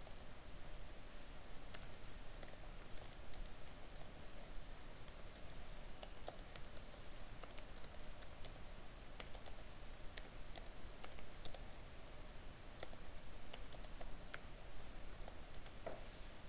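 Typing on a computer keyboard: irregular, quiet keystroke clicks.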